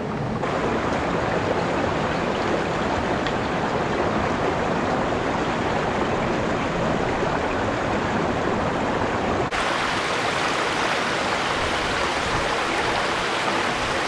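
Shallow river rushing over rocks: a steady rush of running water, which changes abruptly about two-thirds of the way through to a brighter, hissier rush.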